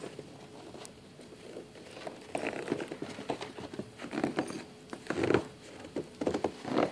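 Footsteps crunching in snow: an uneven run of steps that starts about two seconds in.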